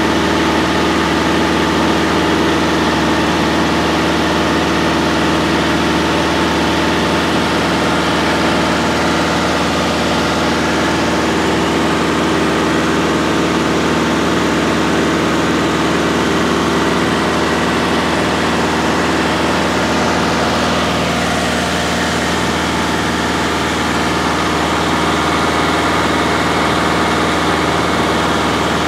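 Single-engine light aircraft's piston engine and propeller running steadily in cruise, heard inside the cabin as a loud, even drone. The pitch of the drone shifts slightly about two-thirds of the way through.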